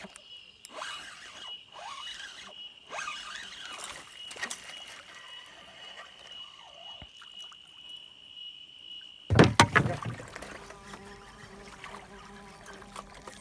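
A steady high-pitched insect drone with scattered short chirping calls. About nine seconds in it breaks off with a sudden loud thump and handling noise, followed by a faint low hum.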